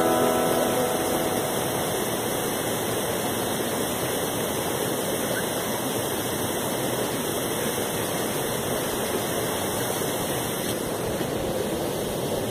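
The final strummed chord of an acoustic guitar rings out and fades within about the first second, leaving a steady rushing noise.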